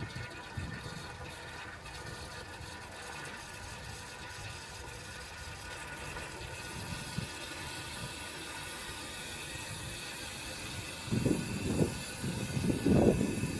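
Restored cast iron high-level toilet cistern refilling after a flush, water hissing steadily in through the float valve. Near the end come a few loud low rumbles.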